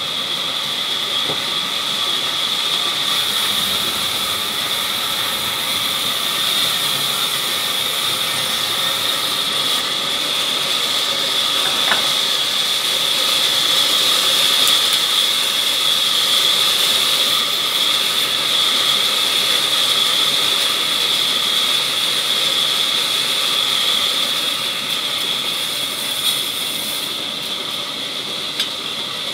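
Sawmill band saw ripping a teak log lengthwise as it is fed through the blade: a steady high-pitched whine over the hiss of cutting, a little louder in the middle, with a few light knocks.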